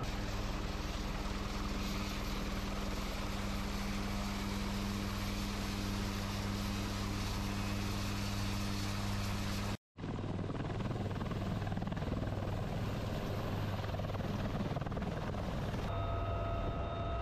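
UH-1Y Venom helicopter's main rotor and twin turboshaft engines running steadily on the ground. The sound drops out for a moment about ten seconds in and resumes. About a second before the end it changes to the noise heard inside a helicopter cabin, with steady whining tones added.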